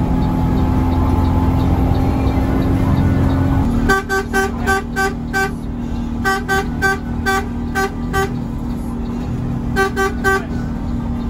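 Bus horn heard from inside the cab, sounding three quick runs of short toots on one pitch, starting about four seconds in. Under it the diesel engine runs steadily, louder before the horn begins and quieter once it starts.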